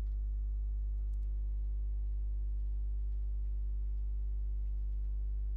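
Steady low electrical hum with a stack of even overtones, unchanging throughout: mains hum in the recording chain. One faint click about a second in.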